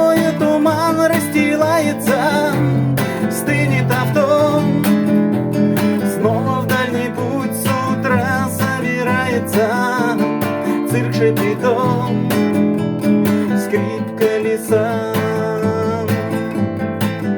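Acoustic guitar strummed steadily in a song's instrumental break, with a wavering melody line above the chords.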